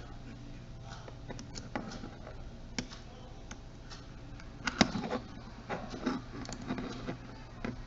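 Light plastic clicks, taps and scrapes of a camcorder's small plastic cover being pried and worked loose by hand, coming thicker about five seconds in. A faint steady hum runs underneath.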